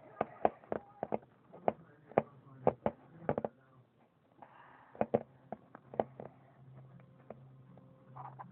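Fluffy slime being squeezed and pressed into a plastic container, giving a string of sharp, irregular pops and clicks.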